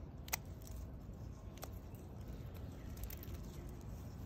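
Quiet outdoor garden ambience: a steady low rumble with a few faint, sharp clicks spread through it.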